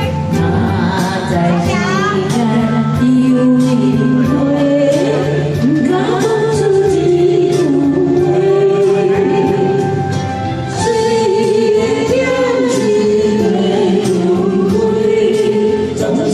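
A song playing: a sung melody over backing music with a steady beat.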